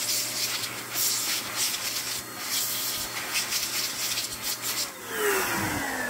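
DataVac electric duster blower running: a steady motor whine with rushing air as it blows dust out of a laptop's cooling fan. About five seconds in it is switched off, and the pitch falls steadily as the motor winds down.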